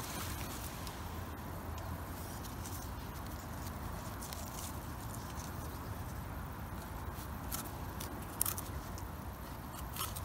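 Serrated knife scraping soil off the stem of a freshly picked porcini mushroom: soft scratchy scraping, with a few sharp clicks near the end, over a steady low rumble.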